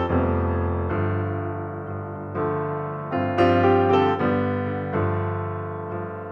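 Background piano music: a slow, gentle melody of single notes and chords, each note struck and left to fade.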